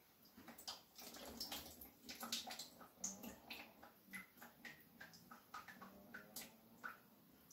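Water dripping drop by drop into water in a kitchen sink's washing-up bowl, each drop a short plink, irregular, about two or three a second, faint.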